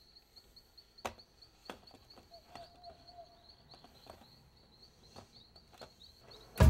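Sharp clicks and taps of a hand fumbling at a bedside digital alarm clock, the loudest about a second in, over a faint steady high-pitched tone. Loud drum-led music kicks in at the very end.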